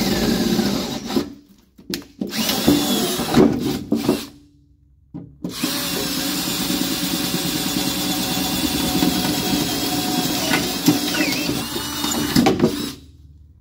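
Electric drill with a 7/16-inch bit boring out pilot holes in an aluminum racing seat back. It opens with about a second of drilling and a few short bursts. After a brief pause comes one steady run of about seven seconds that stops shortly before the end.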